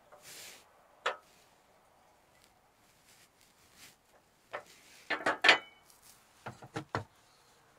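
A single sharp click, then a quick run of metal clanks and clatters with a brief ring as metal burner grates are set down onto a two-burner propane stovetop.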